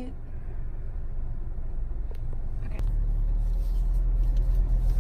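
Car running, heard from inside the cabin as a steady low rumble that grows louder about three seconds in, with a few faint clicks.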